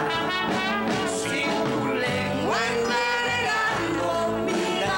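A man and a woman singing a duet together over backing music, one voice swooping up in pitch about halfway through.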